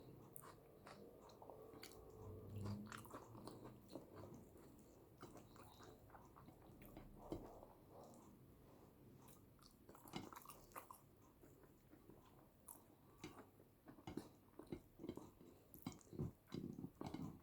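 Close-miked chewing and wet mouth clicks of someone eating yam with eggplant sauce, ASMR style. The sounds are soft, with a denser run of louder smacks near the end.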